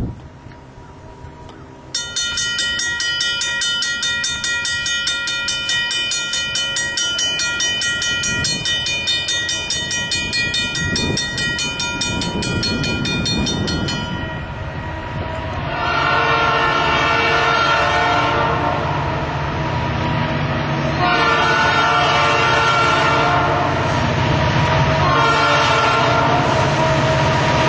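Train horn sounding one long, steady chord for about twelve seconds as the train approaches. Then the train passes close by, louder, with a low rumble of the cars on the rails and the horn sounding again in several blasts.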